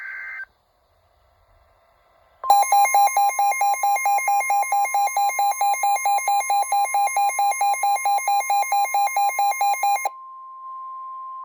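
Emergency Alert System attention signal: after a brief high beep at the very start, a loud electronic alarm of a steady tone and a pulsing tone begins about two and a half seconds in, pulsing about four times a second. The pulsing stops about ten seconds in, and the steady tone carries on alone, quieter.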